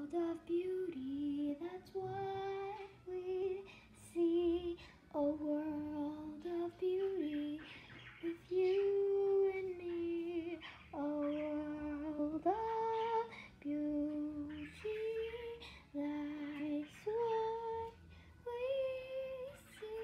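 A high female voice singing a slow melody solo and unaccompanied, holding each note for about a second.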